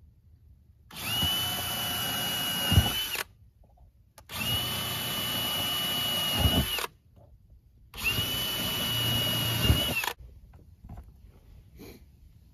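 Cordless drill running into a wooden board in three separate runs of about two seconds each, a steady high motor whine that winds up at the start and drops off as each run ends.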